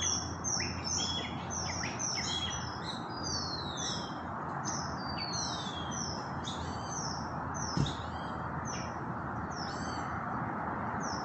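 A dense chorus of high bird chirps, short notes falling in pitch and repeating several times a second, over steady background noise. A single dull thump comes near the eight-second mark.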